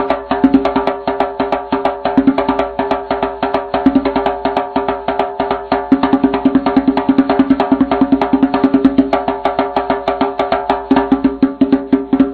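Background music with a fast, even percussive beat over steady pitched tones.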